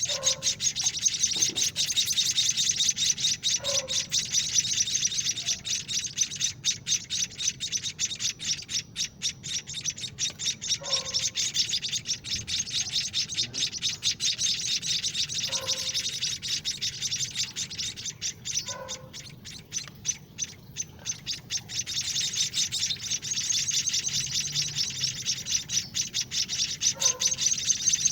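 Seven-day-old white-headed munia (emprit kaji) nestlings begging as they are hand-fed: a continuous, rapid high chirping chatter, with a short lower note falling in pitch every three to four seconds.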